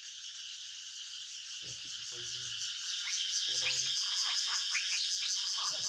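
Steady, shrill chorus of insects with a fine pulsing texture, growing louder about three seconds in. Several short rising chirps come over it in the second half.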